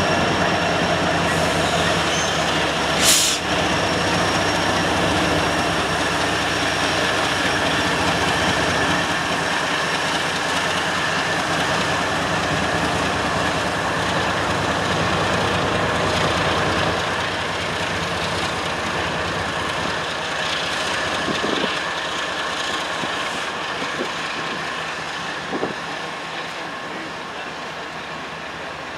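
Norfolk Southern diesel locomotives, an EMD SD70ACe and GE ES44AC units, rolling past close by with engines running and steady wheel and rail noise. There is a sharp metallic clank about three seconds in and a smaller one near the end, and the sound slowly fades over the last several seconds.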